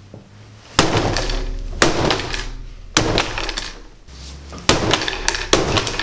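Five sharp bangs about a second apart, each trailing off in a rattling clatter, as a laptop hard drive is forcibly wrenched out of its bay and the laptop knocks against the wooden table.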